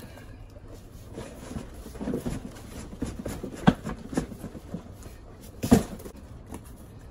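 Large cardboard boxes being handled: an outer shipping carton is flipped over and a long inner box is pulled out of it. Cardboard rubs and scrapes, with two sharp knocks about two seconds apart, the first about halfway through.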